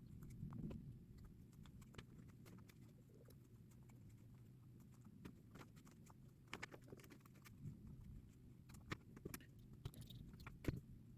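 Faint, scattered small clicks and ticks of tiny screws and aluminium beadlock wheel parts being handled during assembly, over a low steady hum.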